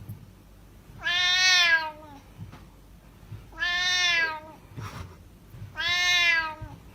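Domestic cat meowing three times, each a long drawn-out call of about a second, evenly spaced.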